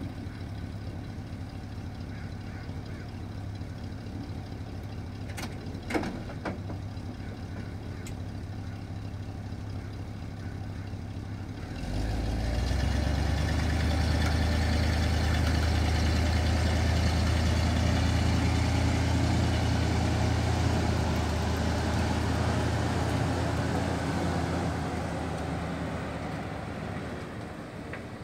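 Square-body pickup truck's engine idling, then about twelve seconds in it gets louder and holds steady under load as the truck tows the floatplane on its trailer up the ramp and out of the water. A single sharp knock about six seconds in; the engine eases off near the end.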